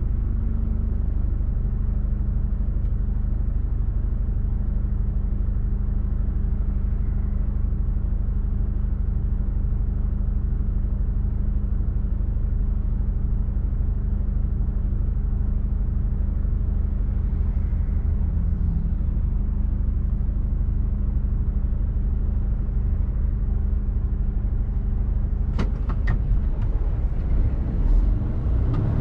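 Mercedes Actros truck's diesel engine running with a steady drone while driving, heard from the cab. A few sharp clicks come near the end, and the noise grows busier just before it stops.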